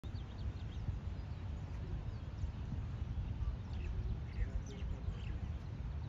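Steady low rumble of wind on the microphone, with small birds chirping faintly in the background: a cluster of quick, falling chirps past the middle.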